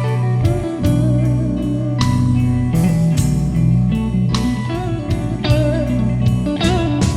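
Blues-rock song in an instrumental passage between vocal lines: electric guitar playing bent notes over bass and a steady drum beat.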